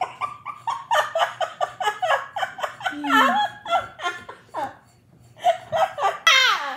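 A boy laughing hard in a long run of quick bursts, about four or five a second, breaking off briefly about five seconds in and starting again, with a high falling squeal near the end.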